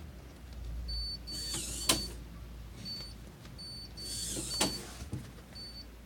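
Arduino-controlled hobby servo whirring briefly to throw the door's lock, each run ending in a clunk, twice: the lock turned to one side then back, locking and unlocking. Between them the HID card reader gives short high beeps as the card is scanned.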